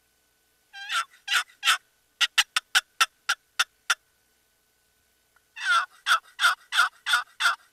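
Wooden turkey box call, its paddle slid across the box to imitate a turkey: three drawn-out notes, a quick run of about nine short clucks, then after a pause a series of about seven yelps.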